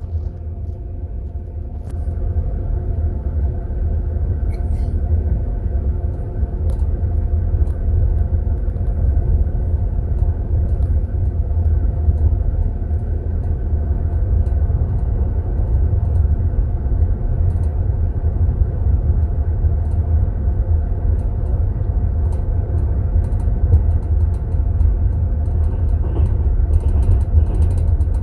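Passenger train in motion heard from inside a sleeper compartment: a loud, steady low rumble with a steady hum over it and a few faint ticks.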